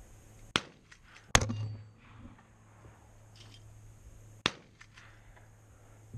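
AR-15 rifle firing three single shots at uneven intervals: two about a second apart near the start, the second the loudest with a short ringing tail, and a third about three seconds later. Fainter clicks fall between the shots.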